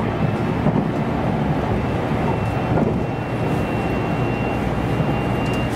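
JR West Special Rapid commuter train running at speed, heard from inside the passenger car: a steady rumble of wheels on the rails with a thin high whine from about two seconds in, and a sharp click near the end.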